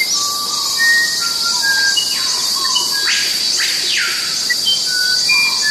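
Forest ambience: a steady, high-pitched insect chorus, with many short whistled calls at different pitches from birds or frogs scattered through it. About halfway through come a few brief hissing calls that fall in pitch.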